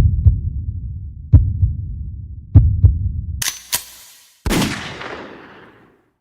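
Heartbeat sound effect: three deep lub-dub double thumps, about 1.3 s apart. About 3.5 s in it gives way to two sharp cracks and then a heavier bang with a long fading tail.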